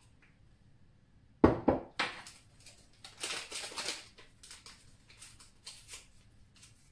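A plastic container set down on the counter with two or three sharp knocks, then the crinkling and rustling of a small paper sachet of baking powder being handled and opened.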